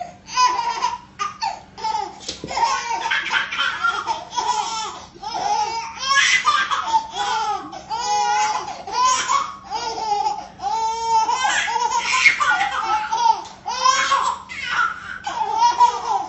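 Two babies laughing, burst after burst of belly laughs with short pauses between.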